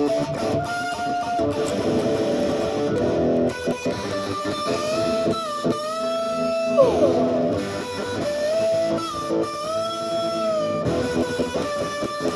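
Rock and roll song with a lead electric guitar playing a solo of held, bent notes, sliding down quickly about seven seconds in.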